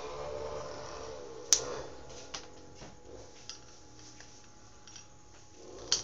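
Mondial desk fan's single-phase motor switched on but not starting, giving a faint steady hum, with a sharp click about one and a half seconds in and a few light ticks later. The motor's capacitor winding is broken open, so it cannot start by itself even with a good capacitor.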